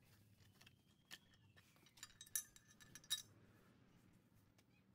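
Faint, sparse metallic clicks and clinks as a steel shift rail is slid out of a Tremec T5 transmission's shifter cover and the shifter forks are handled; the sharpest clinks come about two and three seconds in.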